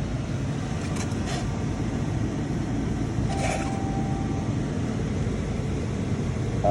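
Dodge Grand Caravan engine idling with a steady low rumble, with a few faint clicks and a short thin beep about halfway through.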